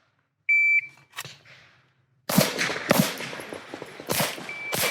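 Shot-timer start beep, a short steady electronic tone, followed about two seconds later by handgun shots: two quick pairs (double taps) about a second and a half apart.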